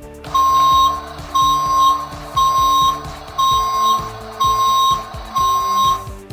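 Electronic sound effect of a Dickie Toys toy tow truck: a steady high beep repeating about once a second, six times, like a warning or reversing beep.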